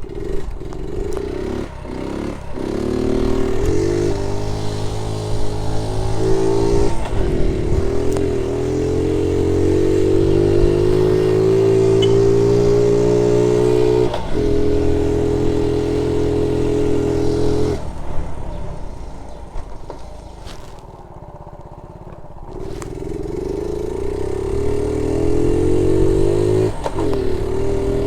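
1976 Honda Z50 J1 Monkey's small four-stroke single-cylinder engine pulling the bike along. It rises in pitch and steps down at each change through its three gears, eases off for a few seconds about two-thirds through, then climbs up through the gears again. It runs with no misfire.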